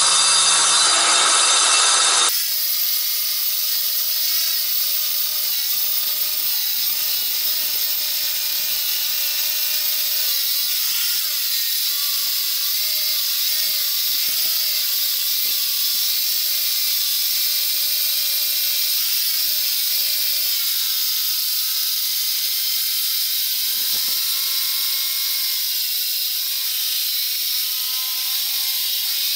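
Porter-Cable 7 1/4-inch circular saw with a diamond blade cutting a granite slab, water fed to the blade: a steady high grinding hiss over the motor's whine. The sound is louder and fuller for the first two seconds, then changes abruptly and holds steady, the whine dipping slightly partway through.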